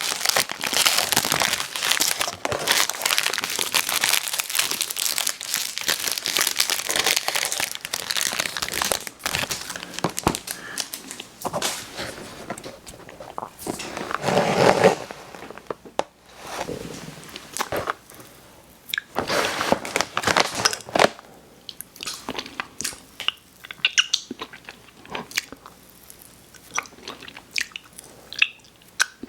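Close-miked eating sounds: a snack wrapper crinkling and crunching for the first several seconds, then bites and chewing in separate bursts with short pauses between them.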